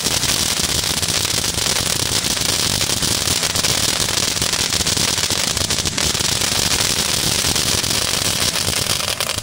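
Brothers Fireworks 'Oversize Load' ground fountain burning at full output: a steady, loud spraying hiss of sparks thick with rapid crackling.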